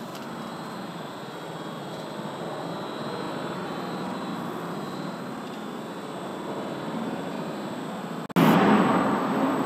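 Steady machinery noise of a PVC tube production line, with the tube feeding continuously through the laser marker's guide rollers. Near the end the sound cuts abruptly to a much louder rush of noise, which then fades.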